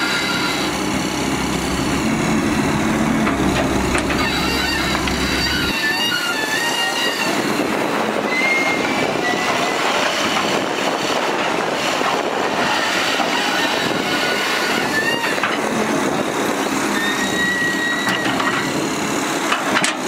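Caterpillar 320C hydraulic excavator running steadily as it digs soil out of an overturned steel dump-truck bed, with short high squealing notes now and then.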